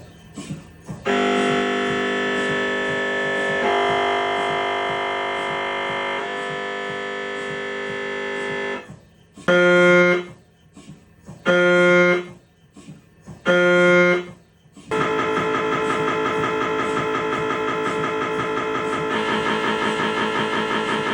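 Siemens Magnetom Espree 1.5 T MRI scanner's gradient coils buzzing through imaging sequences. A few quick clicks lead into a long, steady, loud buzzing tone that shifts pitch twice. Then come three separate buzzes of about a second each, roughly two seconds apart, and from about fifteen seconds in a continuous, rapidly pulsing buzz.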